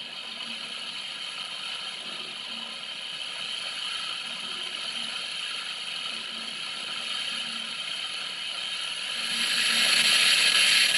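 Steady hiss with a faint hum from running household appliances, growing louder about nine and a half seconds in.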